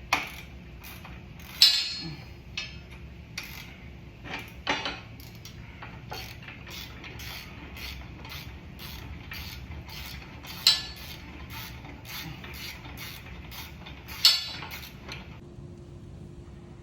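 Saddlebag rack hardware being worked into place on a motorcycle: a steady run of small metal ticks, about two or three a second, with a few louder metallic knocks in between. The ticking stops near the end.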